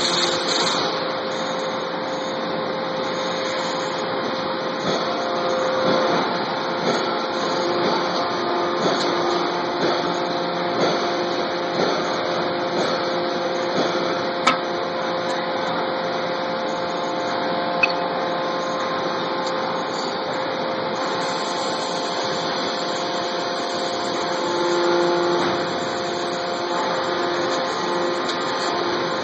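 Steady hum of the vertical impact extrusion press's motor running, with a few steady tones over a noisy drone. Two sharp metallic clicks come about halfway through.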